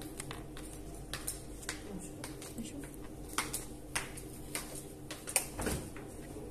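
Scattered light clicks and knocks of small objects being handled on a desk close to the microphone, the loudest about five and a half seconds in, over a steady low hum.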